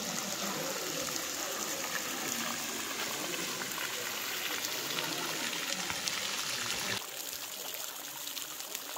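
Small, very tall waterfall: a steady rush of falling and splashing water. About seven seconds in it turns quieter and duller.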